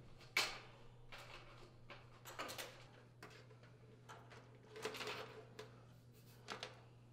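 Faint handling sounds as the fan motor's wires are pushed through holes in the air-conditioner condensing unit's sheet-metal cabinet: a few short rustles and scrapes of wire against metal.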